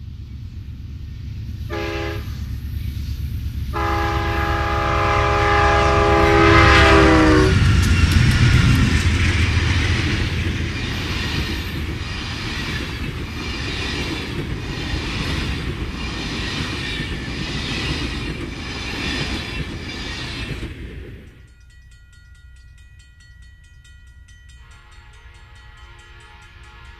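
Horn of Amtrak P42DC diesel locomotives: a short blast, then a long one whose pitch drops as the locomotives pass the crossing. The rumble and rhythmic clickety-clack of the passenger cars rolling by follows. After a sudden cut, a distant train horn sounds faintly near the end.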